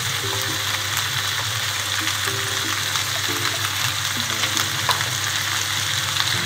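Pumpkin pieces frying in a pan, a steady sizzle.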